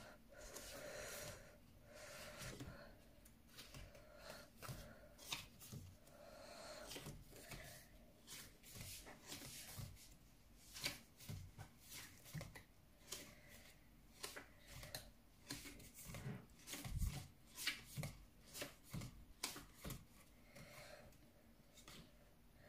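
Glossy photobook pages being turned and handled, a quiet run of short papery flicks and rustles. Close breathing is audible in the first several seconds.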